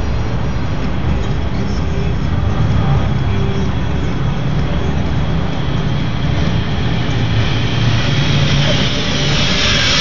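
Loud, steady outdoor city din, mostly a low traffic rumble, with a hiss that grows louder near the end.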